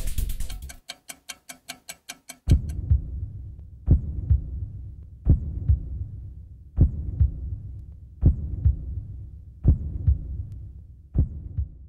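Heartbeat sound effect: slow low double thumps (lub-dub), repeating about every second and a half. Before it, music cuts off and a short run of quick ticks plays.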